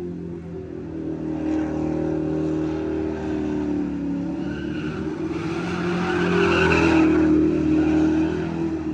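Full-size truck's engine revving as it spins donuts, with tires squealing and skidding on the pavement. The engine and tire noise build to their loudest about six to seven seconds in, then ease off.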